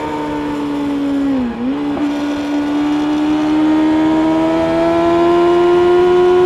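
Kawasaki ZX-6R's inline-four engine through an Akrapovic exhaust, heard from the moving bike. The revs dip briefly about one and a half seconds in, then climb slowly and steadily.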